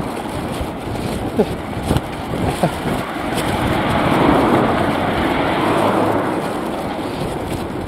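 A car passing on the street: its road and engine noise swells about three seconds in and fades again near the end.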